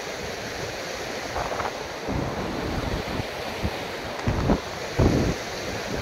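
Fast mountain stream rushing over rocks: a steady white-water wash, with several gusts of wind buffeting the microphone.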